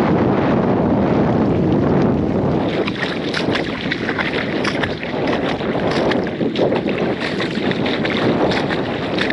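Wind buffeting the microphone, heaviest for the first couple of seconds. From about three seconds in, a string of irregular footsteps comes through the wind.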